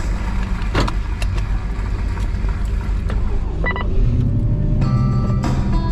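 Off-road vehicle engine and drivetrain rumbling, heard from the cab while it rolls over sand, with a sharp knock just under a second in. Music with steady held notes comes in about four seconds in.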